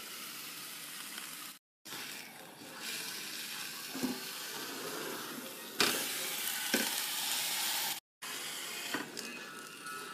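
Meat sizzling on the hot ridged grill plates of a Cuisinart Griddler Deluxe electric grill, a steady sizzle that cuts out briefly twice and is loudest a little past the middle.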